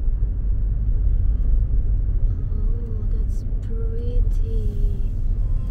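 Steady low rumble of a car driving, heard from inside the cabin. In the second half a voice gives a long, drawn-out "ooooh" of admiration.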